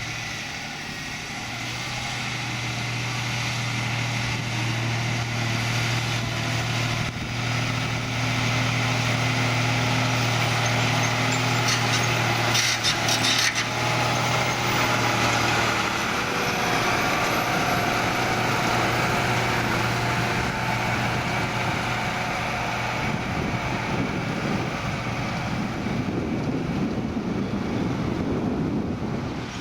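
John Deere 7280R tractor's six-cylinder diesel engine working steadily under load, pulling an eight-furrow Kverneland plough through grass. It grows louder towards the middle and the engine note drops slightly about halfway through.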